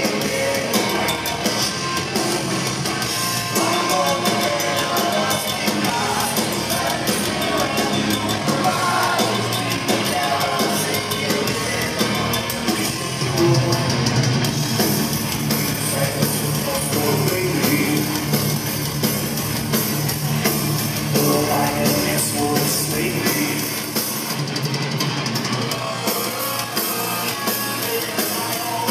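Heavy metal band playing live, loud and continuous: distorted electric guitars, bass guitar and drum kit, recorded from within the audience.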